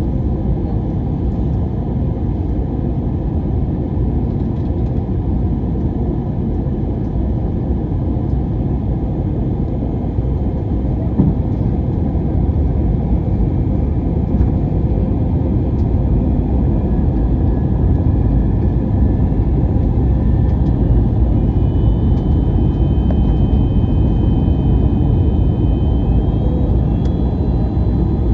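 Airbus A321-200 cabin noise in flight: a steady, loud low rumble of engines and airflow. In the second half faint high whining tones join it and shift in pitch a few times.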